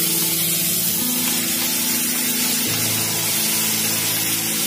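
Tomatoes, curry leaves, cashews and coconut frying in oil in a kadai, a steady loud sizzling hiss as the sambar masala is roasted. Low held tones underneath change pitch twice.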